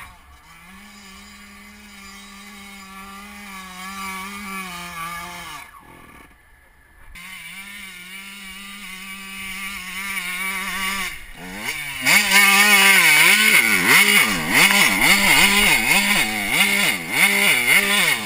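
Kawasaki motocross bike engine running at a steady pitch, then from about twelve seconds in much louder and close, its revs rising and falling rapidly as the bike climbs the rough track and crests a mound.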